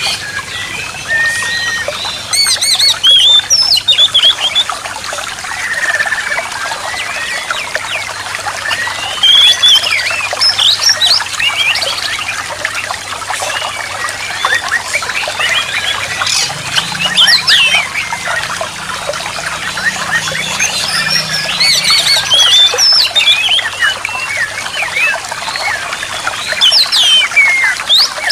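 Songbird whistles, chirps and chatter, one phrase after another, over a steady trickle of running water: the kind of bird-therapy recording played to coax a silent oriental magpie-robin into song.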